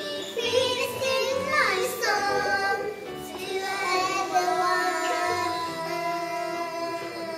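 Two young girls singing a duet of a slow ballad into a microphone, their voices holding long notes through the second half.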